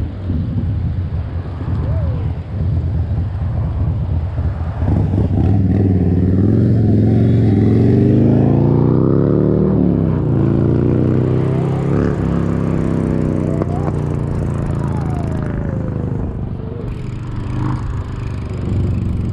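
A motor vehicle passing close by: its engine grows louder with a slowly rising pitch from about five seconds in, the pitch drops sharply near the middle as it goes past, and it fades over the next few seconds. Under it, a steady low rumble of wind on the microphone from riding a bicycle.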